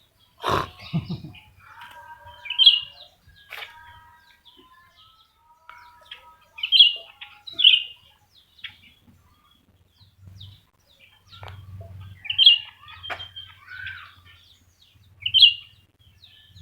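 Cucak rante songbirds calling against each other, with short, sharp high notes repeated every few seconds between softer warbling phrases. A loud knock sounds about half a second in, with a few fainter clicks later.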